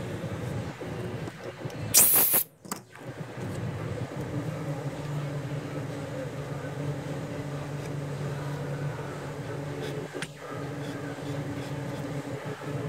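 Steady low hum, with one brief loud rasp of sandpaper on a urushi-lacquered wooden tray about two seconds in and a fainter one near ten seconds.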